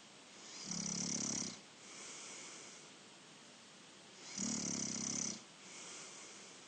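A person snoring in sleep: two loud buzzing snores, about a second in and again about three and a half seconds later, each followed by a softer breath.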